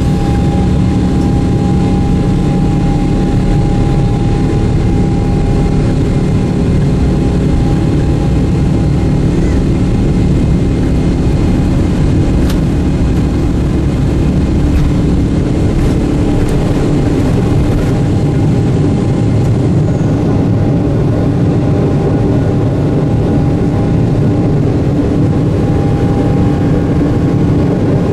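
Boeing 777-300ER's GE90 turbofans at takeoff thrust, heard from inside the cabin: a loud, steady roar with a few steady whining tones over a deep rumble from the wheels on the runway, through the takeoff roll and liftoff.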